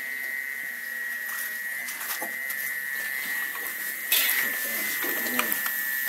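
Steady hiss with a constant high whine; about four seconds in, hot oil in a wok starts sizzling loudly as cookies deep-fry, with a few light metal clinks of a spider strainer and spatula against the wok.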